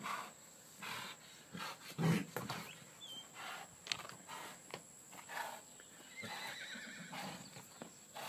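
A horse whinnying several times, with hooves stepping on packed dirt.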